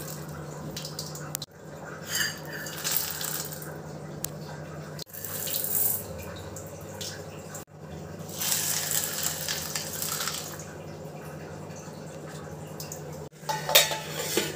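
Water poured from a steel bowl over dried pulses in a steel mixing bowl, in several separate pours of a second or two each. Near the end a steel plate goes over the bowl with a short metallic clatter. A steady low hum runs underneath.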